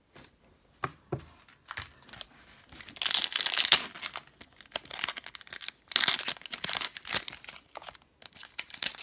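Foil wrapper of an Upper Deck Series 1 hockey card pack being torn open and crinkled by hand, in bursts of rustling that are loudest about three seconds in and again about six seconds in, after a few soft knocks of handling near the start.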